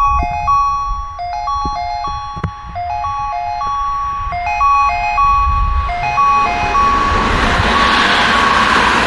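Station platform train-approach chime: an electronic unit beeping a short melody of a few clear notes, over and over. About six seconds in, the noise of an arriving train swells up and drowns it out.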